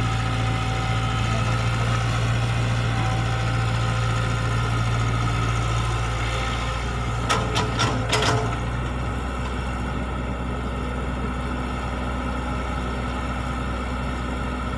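E120B excavator's diesel engine running steadily. About halfway through come a few sharp metallic knocks in quick succession, and after them the engine settles to a slightly lower, quieter note.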